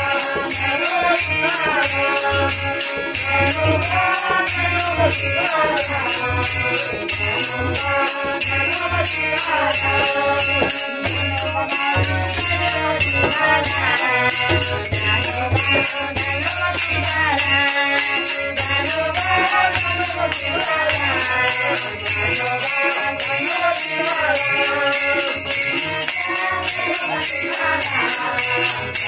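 A group of women singing a devotional-style song together over a steady, fast jingling percussion rhythm.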